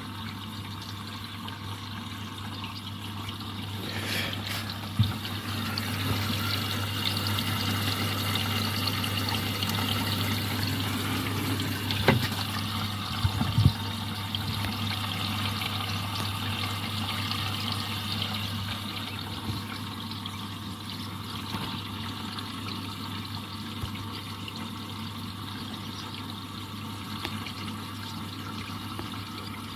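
Indesit EcoTime washing machine filling with water on a Delicates 30 cycle. The steady rush of incoming water grows louder from about four seconds in and eases off after about eighteen seconds, over a steady low hum, with a few sharp knocks around five seconds and again around twelve to fourteen seconds.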